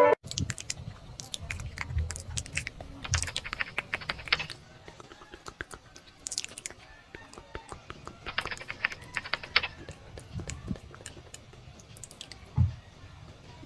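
Runs of light, quick clicks like typing on a computer keyboard, coming in bursts of a second or two with short pauses between them, and a dull thump near the end.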